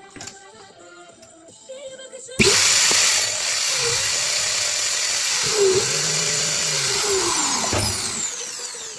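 An electric power tool motor switched on, starting abruptly about two and a half seconds in and running steadily with a loud whir for about six seconds, then winding down near the end.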